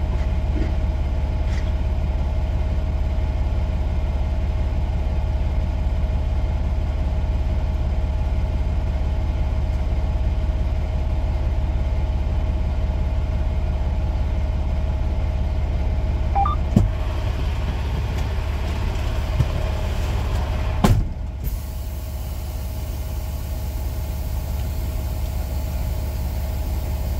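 Semi-truck diesel engine idling steadily, heard from inside the cab as a deep hum with a thin steady whine over it. Two sharp clicks or knocks come about two-thirds of the way through.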